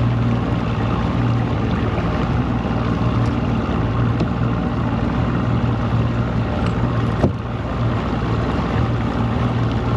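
Boat's outboard motor running steadily on a test run after ignition and fuel-pump repairs, a constant low hum under wind and water noise. One short knock about seven seconds in.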